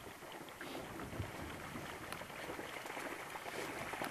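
Faint splashing of a hunting dog running out through shallow floodwater, with light outdoor wind noise.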